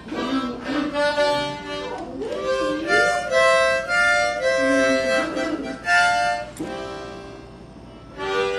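A rat terrier howling along with an instrument being played, its howls sliding up and down in pitch against the instrument's held notes.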